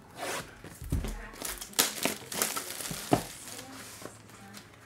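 Plastic wrapping crinkling and tearing as a sealed 2024 Panini Origins Football hobby box is unwrapped and opened by hand. A string of crackles runs through it, with sharp ones about two and three seconds in.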